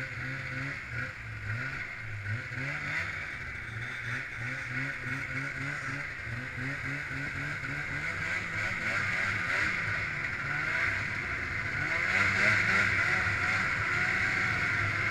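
Snowmobile engine running under way across snow, its pitch rising and falling with the throttle. It gets louder about twelve seconds in.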